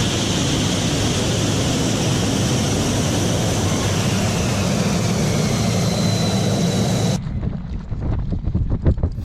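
Loud, steady jet engine noise with a faint high turbine whine, typical of a fighter jet's engine running on the flight line. About seven seconds in it cuts off suddenly, and a quieter run of irregular clicks and knocks follows.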